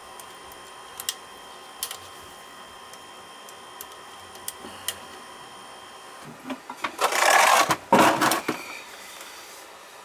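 Camera being handled and moved close to the microphone: two loud rustling scrapes a little past halfway. Before them, a faint steady hum with a few light clicks.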